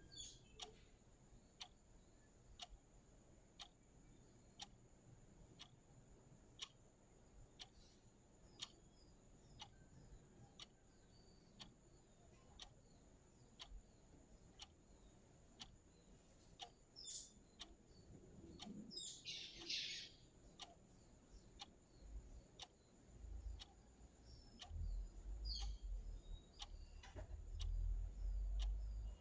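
Clock ticking faint and steady. A few bird chirps come in about halfway through, and a low rumble sets in near the end.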